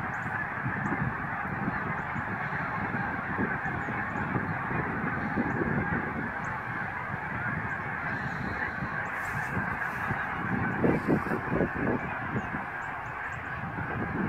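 A large flock of Canada geese honking in flight: a dense, continuous chorus of many overlapping calls.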